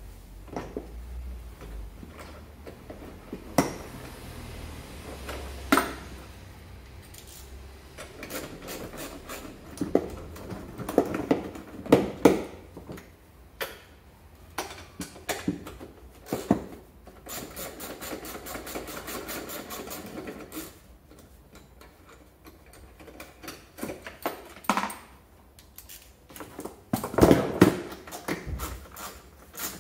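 Hand tools working on a scooter's plastic body panels: scattered knocks and clicks, with stretches of rapid, evenly spaced clicking about two-thirds of the way through and again at the end, and a louder cluster of knocks shortly before the end.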